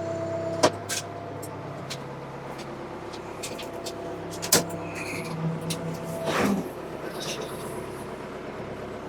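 Backhoe diesel engine idling steadily, with two sharp knocks, one under a second in and a louder one about halfway, and a brief sliding squeal a little later.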